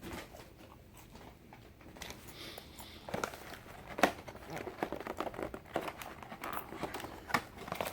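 Faint, intermittent crinkling and rustling of paper fast-food packaging being handled, the bag and sandwich wrapper, with a few sharper crackles along the way.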